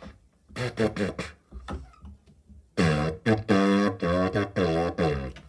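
A flexible hose played like a makeshift horn by buzzing the lips into one end. A few short blats, then a run of about six loud, steady, brassy notes near the same pitch, the middle one held longest.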